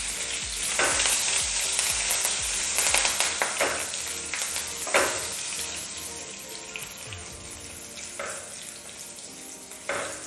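Cumin, green chilli, curry leaves and asafoetida sizzling in hot mustard oil in a pan, with a spoon scraping against the pan several times. The sizzle gradually dies down.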